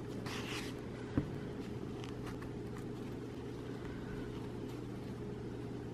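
Steady low background hum, with a short soft rustle of yarn drawn through crochet stitches near the start and a single small click about a second in.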